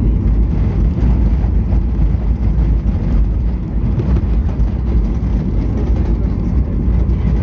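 Steady low rumble heard inside the cabin of a Boeing 737-800 rolling along the ground just after landing: wheel and engine noise.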